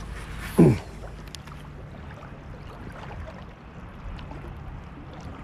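Small waves lapping with a steady low rumble of wind on the microphone. About half a second in there is one short, loud sound that slides quickly down in pitch.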